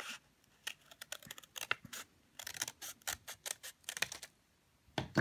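Scissors snipping through folded paper in two quick runs of short clicking cuts, then stopping about a second before the end.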